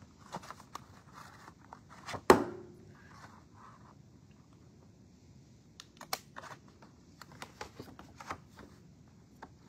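Handheld corner rounder punch snapping through cardstock corners: one loud, sharp click about two seconds in, then a run of lighter clicks with paper rustling near the end.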